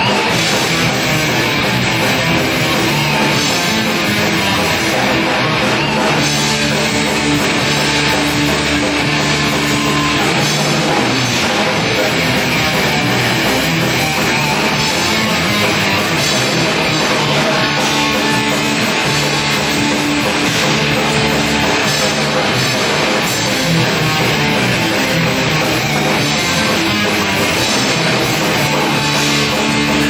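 Rock band playing live at a steady loud level, with guitar and drum kit, without a break.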